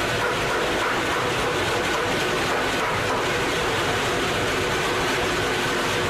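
Homemade wood sawmill running: a steady, unbroken mechanical noise with a faint held tone through it.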